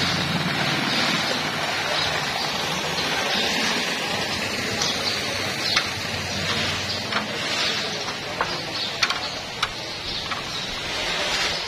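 Water running steadily, with a few light knocks and clicks in the second half.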